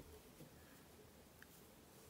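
Near silence: room tone, with a couple of faint ticks from a metal crochet hook and yarn being worked by hand.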